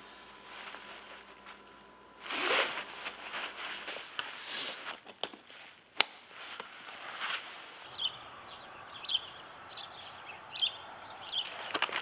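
Rustling of backpack fabric and cord as a pack is handled and its drawstring pulled, with a single sharp click about six seconds in. From about eight seconds, birds chirping, with scattered short knocks and rustles.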